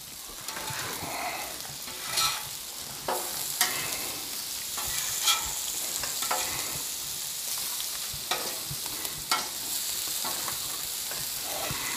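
Brussels sprouts and bacon sizzling on a Blackstone flat-top griddle as a metal spatula stirs and tosses them. Short scrapes and clicks of the spatula on the steel cooktop come every second or so over the steady sizzle.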